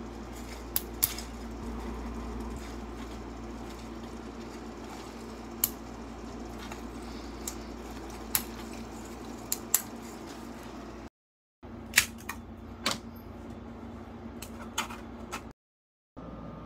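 Sharp, irregular plastic clicks as the jointed segments of a 3D-printed articulated flexi lizard are bent and worked loose by hand, over a steady machine hum.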